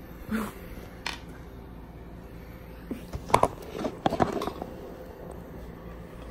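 A few scattered clicks and crackles from handling a medication tablet packet, clustered around three to four seconds in.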